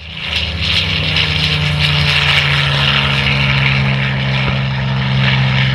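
Pitts S-2B aerobatic biplane in flight, its six-cylinder Lycoming engine and propeller running with a loud, steady drone.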